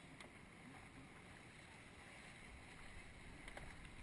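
Near silence: a faint low rumble of wind on the microphone, with a couple of faint clicks.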